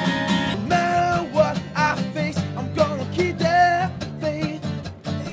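Acoustic guitar strummed in a steady rhythm while a man sings a melody over it.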